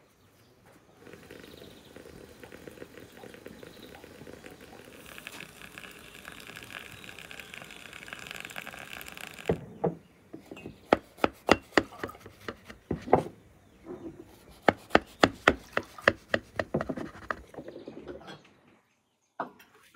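Liquid pouring from a samovar's tap into a glass, a steady hiss that grows stronger partway through. About halfway in it gives way to a knife cutting through a baked apricot cake: a quick run of sharp crackles and taps from the crust and the plate.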